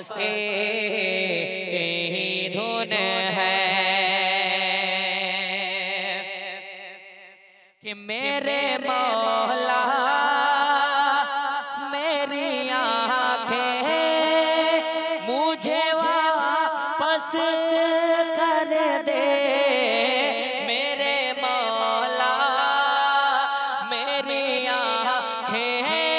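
A boy singing an Urdu naat close into a handheld microphone, drawing out long wordless notes with a wavering vibrato. The first long note fades away almost to silence about eight seconds in, then the singing resumes with bending, ornamented phrases.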